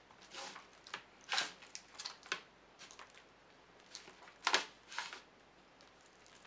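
Sticky glue-and-cornstarch clay dough being kneaded by hand in a container: irregular short handling noises, the loudest about a second and a half in and again about four and a half seconds in.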